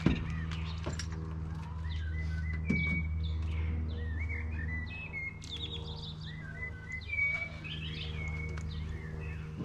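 Small birds chirping and twittering in quick short calls throughout, over a steady low mechanical hum.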